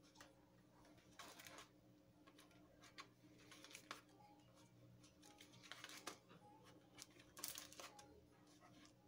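Faint, irregular rustles and soft taps of raw minced-meat patties being pressed by hand and set down on a parchment-lined baking tray, over a low steady hum.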